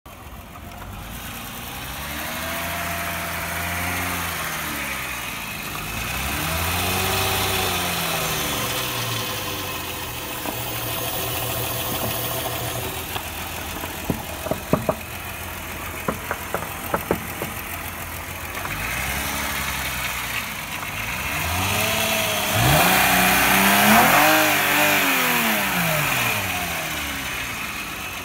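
Mercedes-Benz Vito W638's 2.8-litre V6 engine (104.900) running, revved up and let back down to idle several times, the biggest rise near the end. A few sharp clicks come in the middle.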